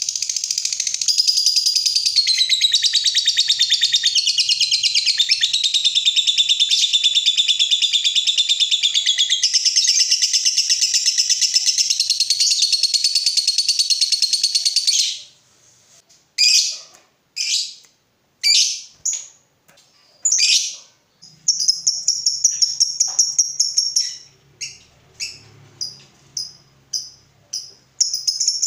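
Lovebird giving its long 'ngekek': a shrill, very rapid chattering trill held unbroken for about fifteen seconds. It then breaks into a string of short separate calls, a briefer trill, more short calls, and a new trill starting near the end.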